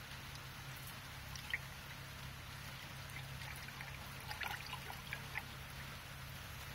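BG109 engine performance restorer being poured from its metal can through a funnel into a car engine's oil filler: a faint trickle of liquid, with a small click about a second and a half in and a few little ticks and drips as the can is tipped and drained.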